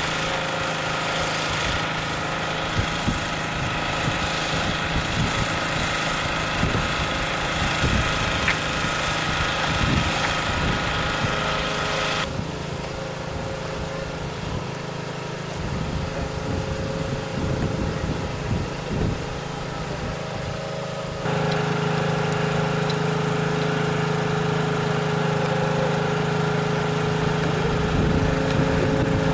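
A small engine runs steadily with a constant pitched hum, under irregular low rumbles. Its tone changes abruptly twice, about twelve and twenty-one seconds in.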